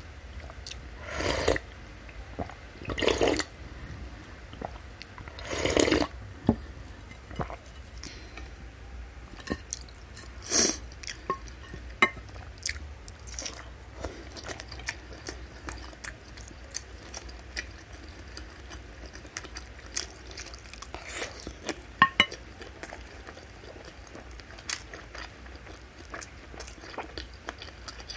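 Close-miked mouth sounds of eating spicy meatball soup: three long slurps of broth and vermicelli noodles in the first six seconds and another near ten seconds. After that comes wet chewing of beef tendon and fat, with many small smacks and clicks.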